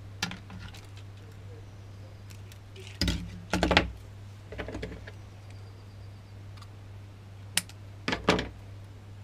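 Handling noise from a plastic spool of 50 lb monofilament line being picked up and line drawn off it on a wooden workbench: scattered clicks and knocks, loudest about three seconds in and again near the end, over a steady low hum.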